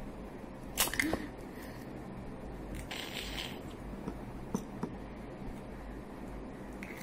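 An egg cracked open by hand: one sharp crack about a second in with a few small clicks right after, then light rustling and ticks of eggshell as the halves are pulled apart and handled to separate the white from the yolk.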